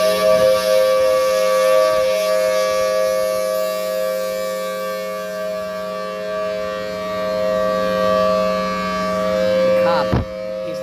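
B-series Thunderbolt 1000 outdoor warning siren sounding a steady chord at full speed, its loudness swelling and fading slowly as the rotating horn sweeps round. A brief thump comes near the end.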